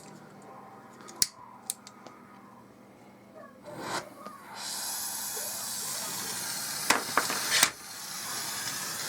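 Gas brazing torch lit and burning with a steady hiss from about four and a half seconds in, after a few light clicks of handling; it is heating a copper-to-steel refrigerator line joint for silver brazing.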